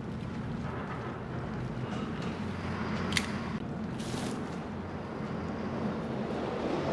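Steady low rumble and hiss of film-soundtrack ambience, with one sharp click about three seconds in and a brief hiss about a second later.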